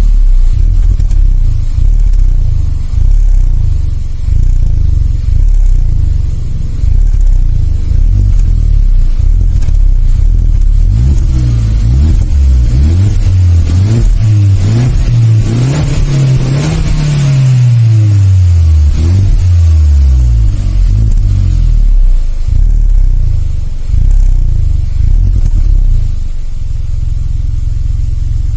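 Stock exhaust of a 2018 Hyundai Elantra Sport's 1.6-litre turbocharged four-cylinder, revved up and down repeatedly, with one longer climb to a high peak about halfway through before falling away. Near the end it settles to a steady low idle.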